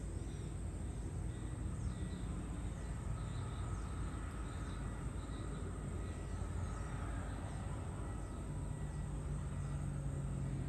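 Outdoor ambience: a steady low rumble with faint, repeated bird chirps and insect calls over it.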